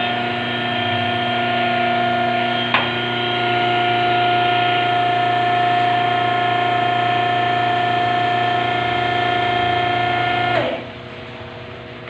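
Hydraulic power unit's electric motor and pump running with a steady high whine, with one sharp click about three seconds in. About eleven seconds in the whine drops away, leaving a quieter steady hum.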